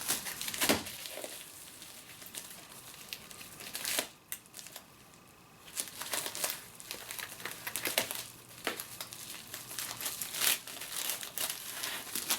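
Plastic packaging of a diamond-painting kit crinkling and rustling as it is handled, in irregular crackles with a brief lull about four seconds in.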